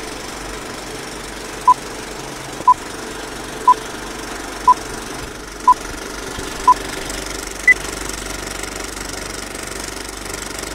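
Old film projector running with a steady mechanical rattle, under a film-leader countdown: six short identical beeps one second apart, then a single higher-pitched beep about eight seconds in.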